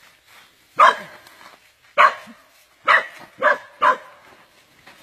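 A dog barking: five short, loud barks, one about a second in, one at about two seconds, then three in quicker succession near the end.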